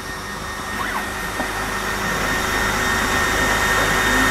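Air-assist pump of an Algo Laser Alpha 22W diode laser cutter blowing air through the laser head at full volume while it cuts plywood: a steady rushing hiss with a thin high whine, slowly growing louder.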